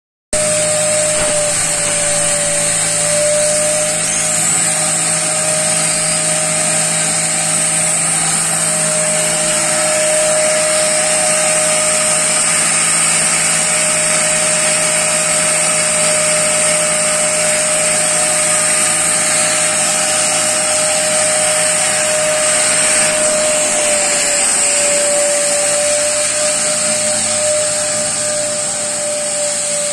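Catalytic converter carbon cleaning machine running: a steady machine whine over a strong even hiss, like a vacuum cleaner, holding constant throughout.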